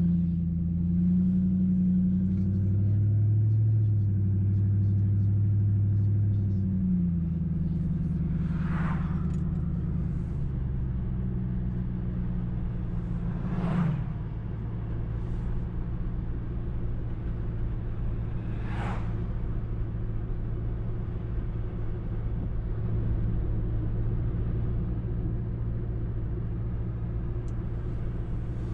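2005 Mercury Grand Marquis 4.6-litre V8 running through a muffler-deleted exhaust (catalytic converters and an H-pipe only) while driving, a deep rumble. The engine note climbs and holds for several seconds, eases off after about seven seconds, then settles into a steady cruise. Three brief whooshes pass by around a third, half and two-thirds of the way through.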